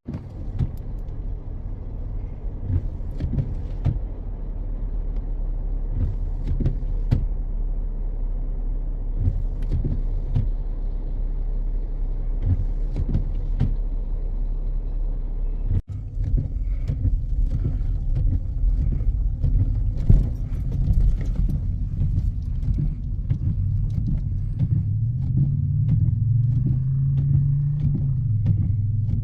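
Car driving: a steady low rumble of engine and road with scattered knocks and bumps. It breaks off abruptly about halfway through, then picks up again, and near the end the engine note rises and falls.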